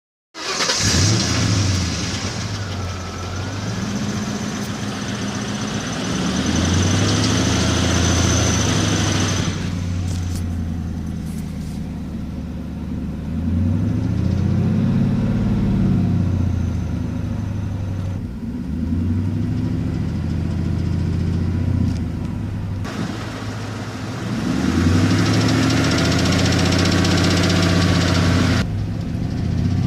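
A 2002 Ford Mustang GT's 4.6-litre V8 running and revved up and back down several times, with a ticking that the owner thinks might be a leaking exhaust manifold gasket.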